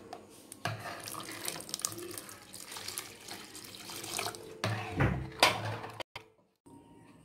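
Water being poured into mashed toor dal in an aluminium pressure cooker, with a metal ladle scraping and knocking against the pot. A few sharp knocks come about five seconds in.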